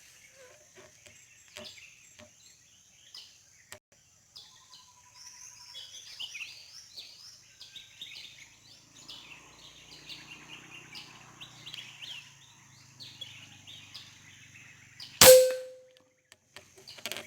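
Birds chirping in quick runs of short notes over a steady high buzz. About fifteen seconds in comes one sharp air rifle shot with a brief ringing ping, a shot that brings down a green pigeon.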